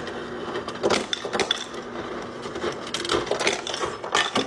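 Refrigerator ice dispenser running: ice cubes clatter down over a steady motor hum, starting and stopping abruptly with a click.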